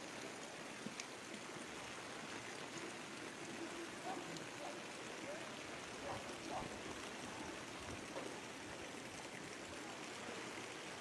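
Faint, steady rushing of water from the flood, an even hiss with no single splash standing out.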